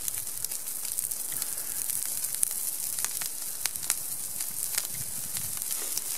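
Campfire crackling, with food sizzling in a pan set over the embers: a steady hiss broken by frequent sharp pops.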